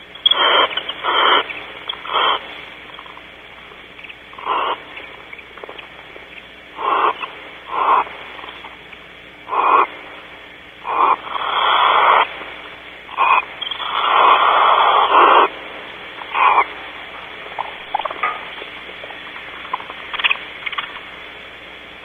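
Barn owls hissing in their nest cavity: about a dozen hissing calls of half a second to a second and a half each, irregularly spaced, the longest around the middle, thinning out to a few faint ones near the end.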